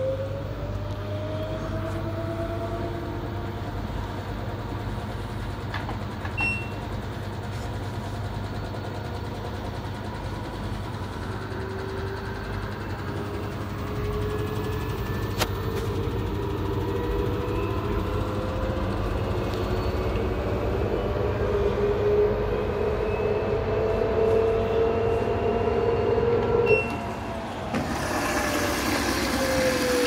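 LG Direct Drive washing machine's direct-drive motor turning the drum in the service test mode, a whine that glides slowly up and down in pitch over a steady low hum. About two seconds before the end the motor stops and the inlet valve opens, with water hissing into the detergent drawer.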